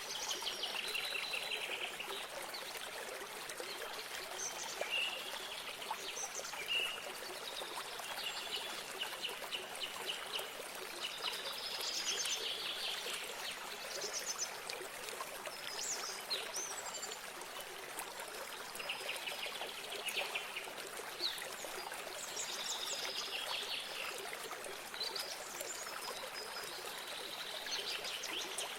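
Water trickling steadily from a small spring or stream, with several small birds chirping and trilling over it, the calls coming every second or two.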